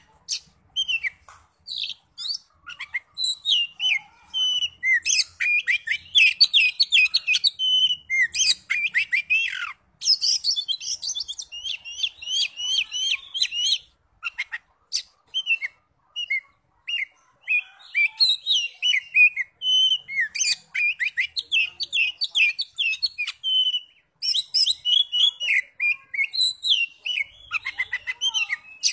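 Oriental magpie-robin singing a fast, varied song of sharp whistles, chirps and quick trills, in bursts of phrases broken by short pauses.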